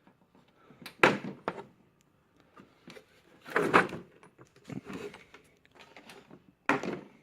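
Plastic socket-set carrying cases being unlatched and opened: a few sharp clicks and knocks of the latches and lids, with handling rattles between them.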